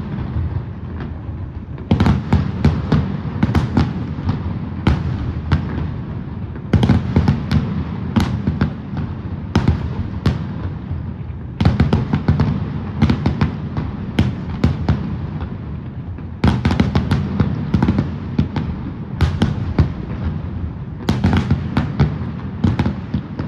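Aerial fireworks display: shells bursting in rapid volleys of sharp bangs and crackles over a continuous low rumble. A fresh volley starts every four to five seconds.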